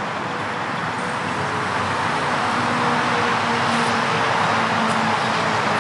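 A road vehicle's engine and tyre noise, slowly growing louder, with a faint steady engine hum under it.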